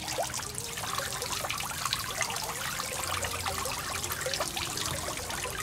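Small pond fountain spraying a jet of water that falls back and splashes continuously onto the surface of a small pond.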